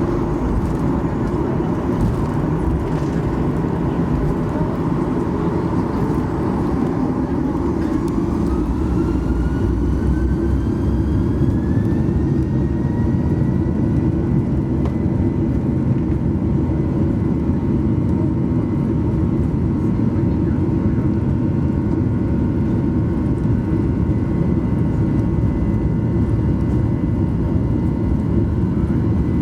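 Boeing 737-800's CFM56-7B jet engines spooling up to takeoff thrust, heard from inside the cabin. A rising whine climbs for several seconds partway through, then settles into a steady high whine over a loud, constant rumble.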